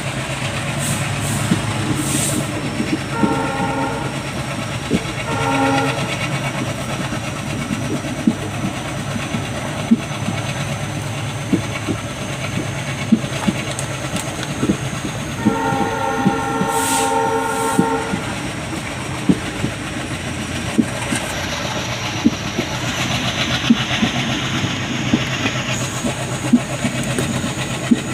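ALCO WDG3A diesel locomotive sounding its multi-note horn: two short blasts a second or so apart, then one longer blast about fifteen seconds in. Under it the diesel engine runs steadily and the wheels click over rail joints, heard from the coach just behind the locomotive.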